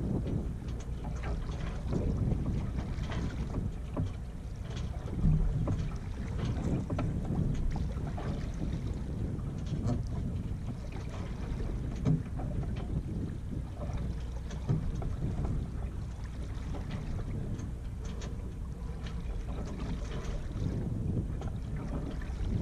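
Steady low wind rumble on the microphone aboard a small sailboat moving slowly in light air, with light splashing of water along the hull and scattered small knocks; the sharpest come about five seconds in and about twelve seconds in.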